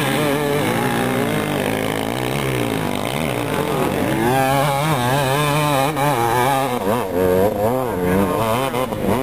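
Suzuki RM250 two-stroke dirt-bike engine revving hard under load as it climbs a steep hill. The pitch holds fairly steady at first, then swings rapidly up and down for the second half as the throttle is worked.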